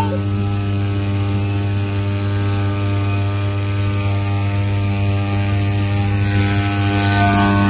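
A motor running at a constant speed: a low, even drone that does not change.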